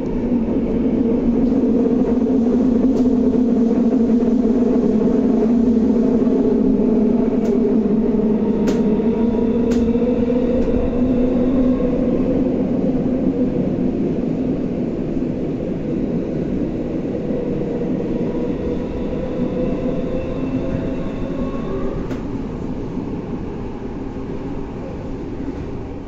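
Tokyo Metro Tozai Line subway train running through the tunnel, its permanent-magnet synchronous traction motors giving a steady two-tone hum over the rumble of the wheels. The hum drifts slightly in pitch and grows gradually quieter through the second half, with a few faint clicks about eight to ten seconds in.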